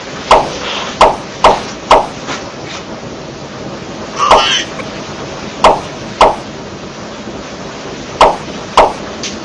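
A person lying down letting out short, sharp huffs as a cat walks across their body, about nine in all, over a steady hiss.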